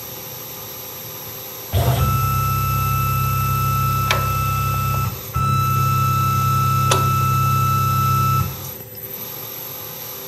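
Tormach PCNC 1100 CNC mill spindle power-tapping a hole in stainless steel with a thread-forming tap. Its motor hum and steady whine start about two seconds in and cut out for a moment around five seconds, as the spindle reverses to back the tap out. It then runs again and stops a couple of seconds before the end, with two sharp clicks during the run.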